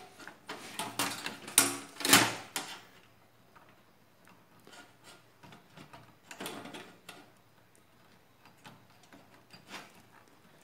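Metal clicks and rattles of a port bracket being worked into a rear expansion slot of a steel computer case, with a run of sharp knocks in the first few seconds, then softer scattered ticks and handling noise.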